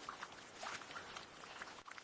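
Faint, irregular crackling and ticking of water and bubbles heard underwater, over a soft hiss.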